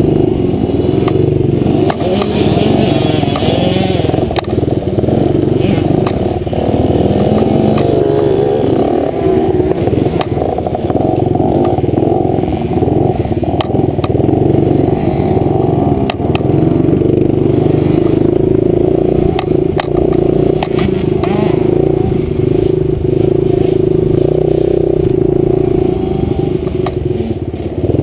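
65cc two-stroke dirt bike engine running hard on a rough trail, heard close on board, its pitch rising and falling as the throttle is worked, with a few sharp clicks and clatter over the top.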